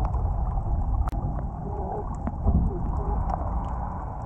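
Muddy rainwater runoff flowing and splashing over stones in a small rocky channel, a steady rushing with a deep low rumble.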